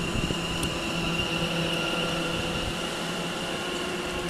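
London Overground Class 710 Aventra electric multiple unit at close range, giving a steady electric whine with a high tone over a low hum from its traction and onboard equipment.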